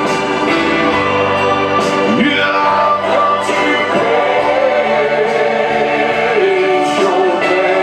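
Live gospel worship music: a congregation and singers singing over sustained keyboard chords.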